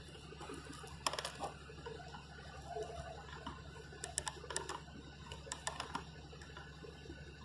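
Inside a car creeping forward at low speed: a steady low engine hum, with scattered sharp clicks and ticks, several in quick succession about four and about five and a half seconds in.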